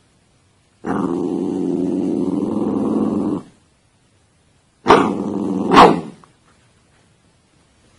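A dog growling for about two and a half seconds, then a second, shorter bout about five seconds in, punctuated by two sudden sharp sounds a second apart.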